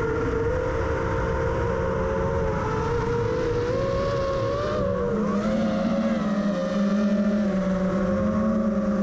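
Drone's electric motors and propellers whining steadily in flight, heard through the drone's own onboard camera, the pitch wavering slightly as it manoeuvres; a lower hum joins about halfway through.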